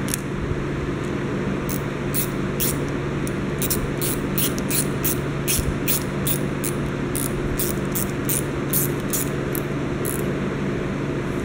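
Ratchet screwdriver with a 6 mm socket clicking in quick runs, about three clicks a second, as stainless hose clamps are tightened onto a plastic hose manifold, over a steady background hum. The clicks start about two seconds in and stop near the end.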